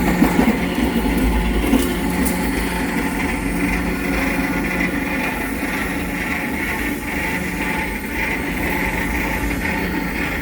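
Southern Railway 4501, a 2-8-2 steam locomotive, running with a steady mechanical hum and hiss and no distinct exhaust beats.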